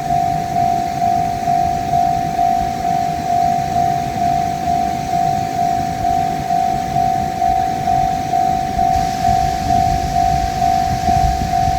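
Japanese level-crossing warning bell ringing, an even single-pitched electronic ding repeating about twice a second. A low rumble builds slightly under it near the end.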